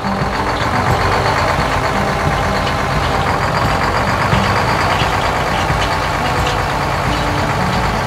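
Combine harvester engine and machinery running in a steady, loud din as it drives through the field cutting wheat; the din comes in suddenly as the machine appears.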